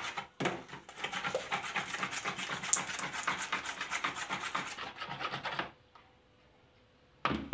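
Fork beating a runny cake batter of eggs, sugar and melted margarine in a plastic bowl by hand: rapid scraping strokes against the bowl, stopping about a second before a single short knock near the end.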